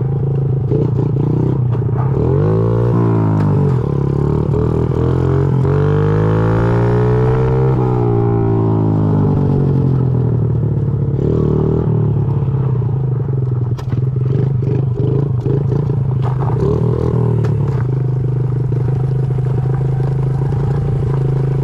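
Honda CRF50's small single-cylinder four-stroke engine running while the mini bike is ridden, revving up and back down twice in the first eight seconds, then holding a steady pitch.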